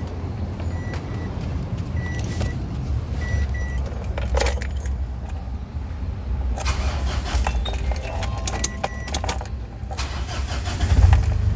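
Metallic clinking and jangling in several short clusters, like tools or parts being handled, over a steady low engine hum that swells near the end. Short high beeps sound four times.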